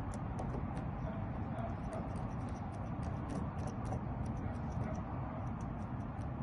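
Lock pick working inside a Ford Mustang door lock: faint, irregular metallic ticking, several clicks a second, as the pick moves the wafers. Some of the wafers are sticking in the lock, which the locksmith says needs WD-40.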